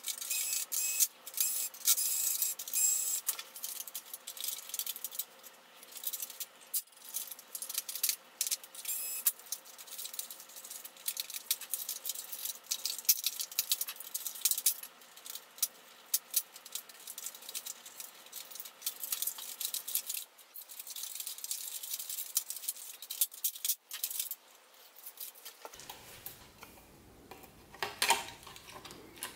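Dense clattering and rattling of plastic and metal printer parts, screws and wiring being handled and pulled apart, with a quick, close-packed run of sharp clicks and a louder rattle near the end.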